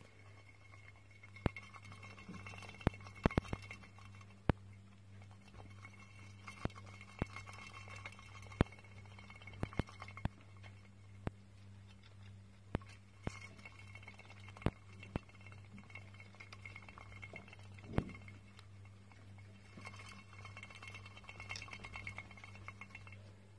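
Plastic saucer-style hamster wheel spinning under a running hamster, whirring in stretches of a few seconds and rattling with scattered sharp clicks over a steady low hum.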